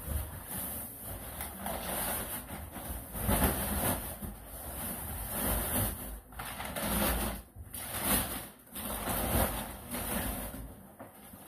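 Large plastic packing bags and brown wrapping paper rustling and crinkling in uneven bursts as a framed painting is pulled out of them.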